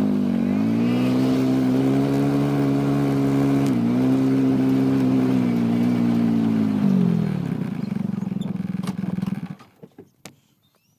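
A vehicle engine revs up from idle, holds steady at higher revs for about seven seconds with a brief dip near four seconds, then drops back to idle and cuts off about nine and a half seconds in.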